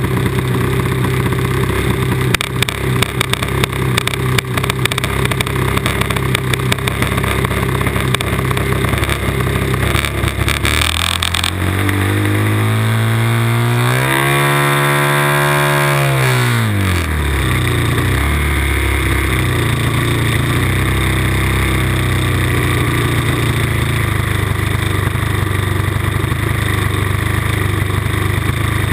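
RC Cub model airplane's engine running, heard from inside the model's cabin, with a rattle over the first third. About eleven seconds in it revs up, holds, and drops back to a steady idle by about seventeen seconds.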